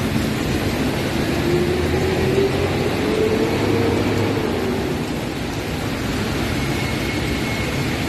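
Heavy rain pouring down in a storm, a steady loud hiss with a low rumble beneath it. A faint tone rises and then falls between about one and five seconds in.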